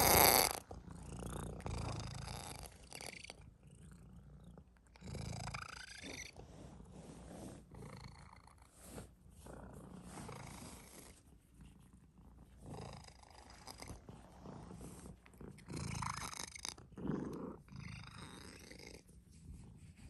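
Sphynx cat purring steadily while its back is stroked by hand, with several short louder noises over the purr, the loudest at the very start, as the cat's body brushes against the phone.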